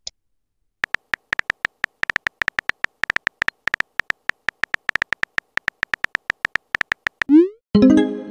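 Rapid run of synthetic phone-keyboard tap clicks, several a second, as a text message is typed out. Near the end comes a short rising swoosh of a message being sent, followed by a brief chime.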